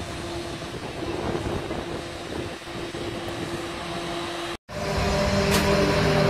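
Steady rush of air from an outdoor vertical wind tunnel's fans, with a steady low hum. About four and a half seconds in the sound cuts out for an instant and comes back louder, with several steady held tones over the rush.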